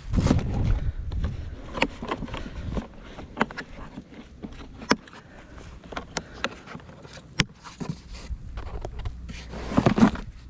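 Irregular rustling and crunching with sharp clicks and knocks scattered through, and a louder rustling burst at the start and again near the end; no saw motor running.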